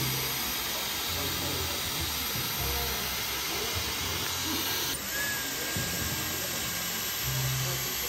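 Dyson Airstrait air straightener blowing in dry-hair mode: a steady rush of air through the hair, with background music and its low bass notes underneath.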